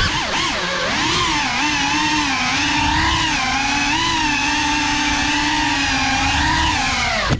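Small FPV quadcopter's brushless motors whining close up from the onboard camera, a stack of tones that rises and falls gently with the throttle. The whine cuts off suddenly at the very end.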